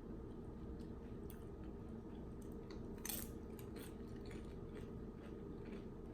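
Close-miked chewing and wet mouth sounds of someone eating a soft chicken fajita taco, small smacks and clicks scattered throughout, with one louder smack about three seconds in. A steady low hum sits underneath.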